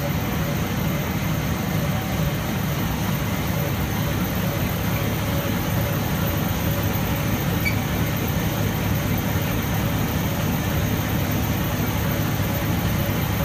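Rotogravure printing press running: a steady, loud mechanical drone and hum from its motors, rollers and blower, unchanging throughout.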